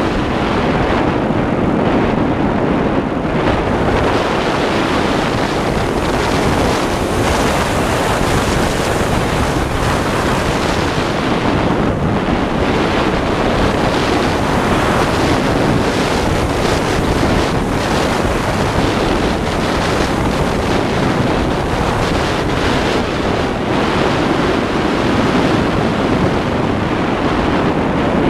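Steady, loud rush of wind over the onboard camera's microphone on a foam RC model plane in flight.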